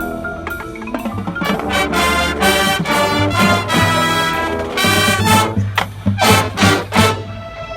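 Marching band playing: full brass chords over low bass, with a run of sharp accented hits in the last two seconds before the brass cuts off and a single held tone remains.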